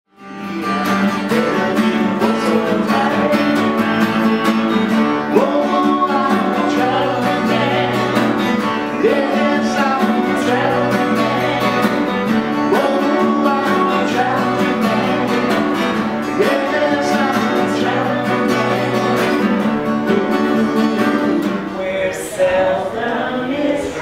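Song with an acoustic guitar strummed under singing.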